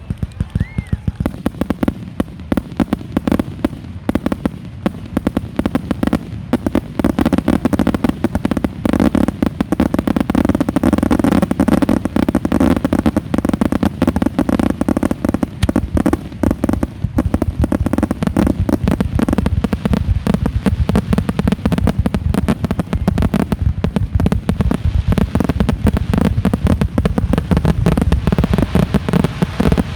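Aerial fireworks display: a dense, continuous barrage of shell bursts and crackles, many reports a second, with a brief whistle right at the start.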